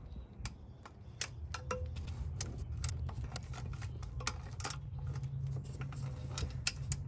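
Inch-pound torque wrench ratcheting as the lower intake plenum bolts and nuts are torqued to 156 inch-pounds: a run of sharp ticks at an uneven pace, over a low steady hum.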